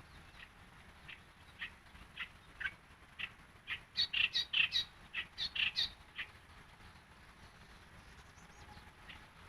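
Yellow-vented bulbul (trucukan) singing: short notes about half a second apart, then a quicker, louder run of notes about four seconds in that stops about two seconds later.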